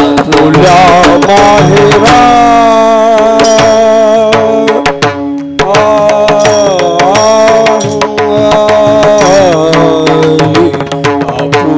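Marathi devotional abhang sung in long, gliding held notes over tabla and percussion accompaniment. There is a brief dip in the music about five and a half seconds in.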